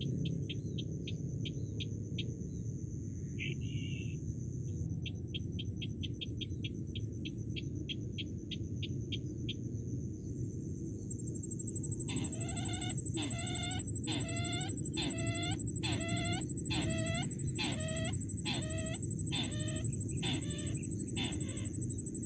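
Bird calls in a field: a quick series of dry ticks, then from about halfway a run of repeated clucking calls, roughly one and a half a second. A steady high whine and a low rumble of outdoor noise lie underneath.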